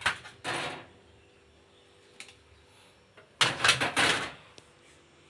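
Handling noise from a Von front-loading washer's plastic door ring and glass: brief scraping and clattering, two short bursts at the start and a longer cluster of several about three and a half seconds in.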